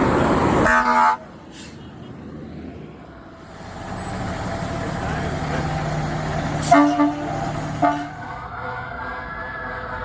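Fire truck horn blasting in short toots: one about a second in, as loud engine noise cuts off, then two more around seven and eight seconds in over the truck's engine. Near the end a siren starts to wail, rising and then falling.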